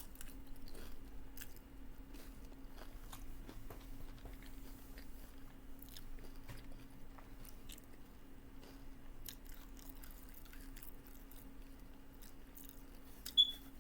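Close-up chewing and crunching of a taco salad with nacho cheese Doritos: many small, irregular crisp crunches over a steady low hum. A brief sharp high-pitched click near the end.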